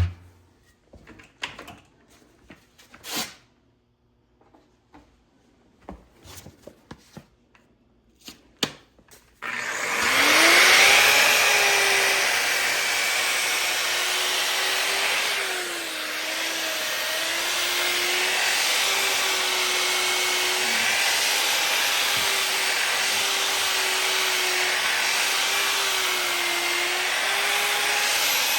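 A few scattered clicks and knocks of handling. About ten seconds in, a Bauer variable-speed grinder starts up, winds up and runs steadily, with the loud rasp of its sanding disc on a cast iron skillet. Its pitch dips briefly now and then.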